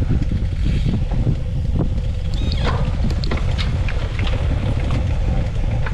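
Wind buffeting the microphone of a camera carried on a moving racing bicycle, a loud, steady low rumble with a faint even hum, and a few light ticks about halfway through.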